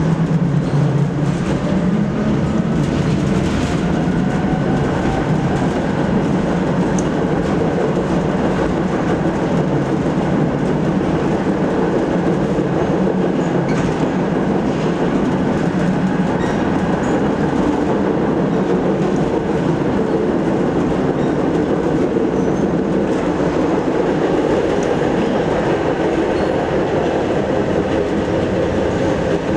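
ČKD Tatra KT8D5R.N2 articulated tram running, heard from inside the passenger compartment: a steady rumble of steel wheels on the rails, with a whine rising in pitch over the first several seconds.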